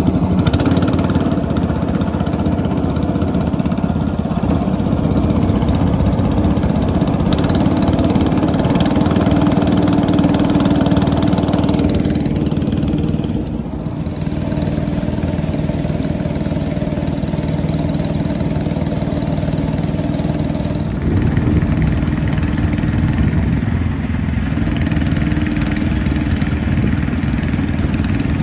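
Small boat engine running steadily as the boat travels. Its tone dips briefly and shifts about halfway through, then changes again a little later.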